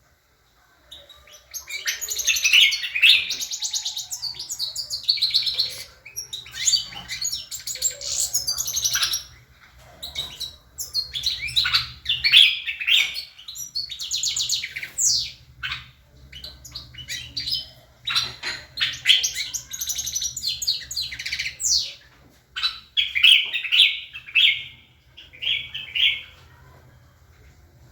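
Songbird song: rapid twittering phrases of high chirps and trills, in bouts broken by short pauses, starting about a second in.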